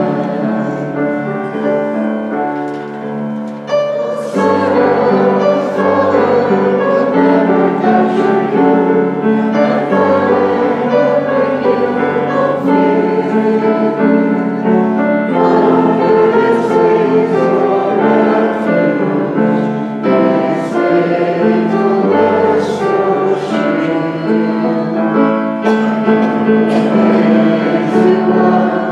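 Congregation singing a slow hymn in unison over a keyboard accompaniment, with a brief softer moment just before a new phrase about four seconds in.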